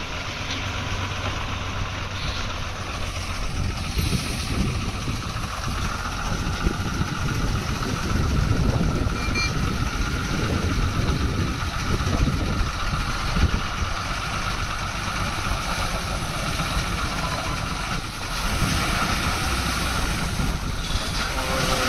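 Diesel engine of a heavily loaded multi-axle goods truck running steadily as the truck crawls slowly uphill past close by.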